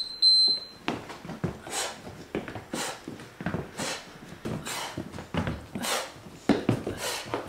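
An interval timer's countdown beeps, the last high beep about half a second in, followed by rhythmic sandbag exercise sounds: a whoosh with a low thud about once a second.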